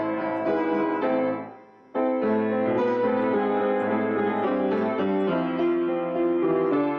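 Solo piano improvisation, single notes over held chords. About a second in the playing fades away, and it starts again abruptly about two seconds in.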